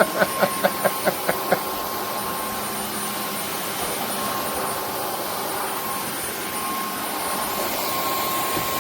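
Dreame H12 Pro cordless wet-dry vacuum and mop running steadily, a constant motor whine over the suction hiss. A quick run of short pitched blips sounds in the first second and a half.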